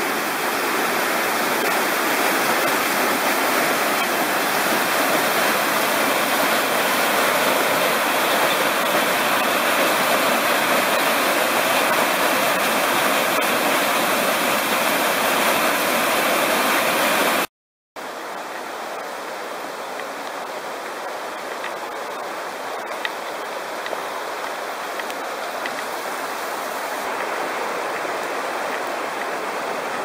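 Steady rush of a waterfall and mountain stream pouring over rocks. The sound breaks off for a moment about halfway through and comes back a little quieter.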